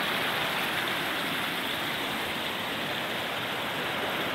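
Water of a large spring's outflow rushing and churning over rocks, a steady rush without a break.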